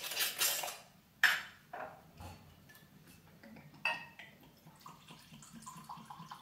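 Screw cap twisted off a glass rum bottle with a short crackle, a couple of knocks and a clink of glass, then rum poured into a glass tumbler with a faint gurgle from a little past halfway.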